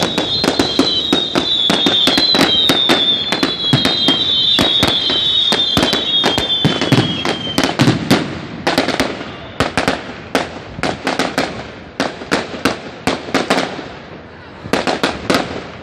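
Fireworks crackling with rapid, dense cracks and pops, over high whistling tones that fall slightly in pitch during the first half. The crackle thins out in the second half, dips briefly, then picks up again with a new cluster near the end.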